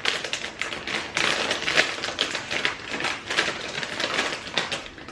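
Crinkly plastic snack packet being handled and opened: a dense, irregular run of sharp crackles.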